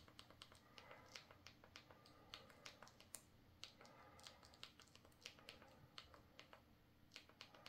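Faint clicking of TV remote control buttons, pressed in a quick irregular run, a few clicks a second, as the highlight on the on-screen keyboard is stepped from letter to letter.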